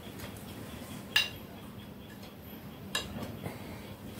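Two light clinks of steel utensils, about two seconds apart, over a quiet room.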